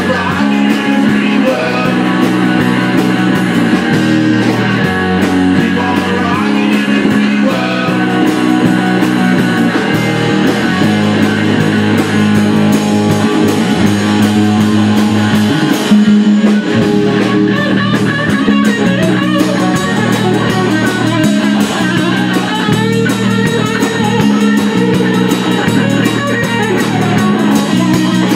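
Live rock band playing: electric guitars over a drum kit, loud and steady.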